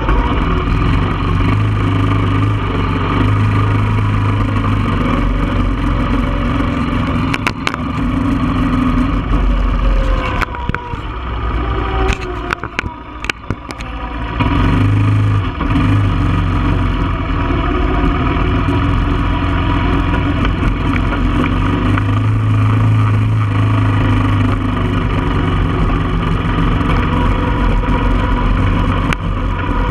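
1995 Honda Foreman ATV's single-cylinder four-stroke engine running under way, easing off for a few seconds about halfway through and then pulling up again. A few knocks come through near the middle.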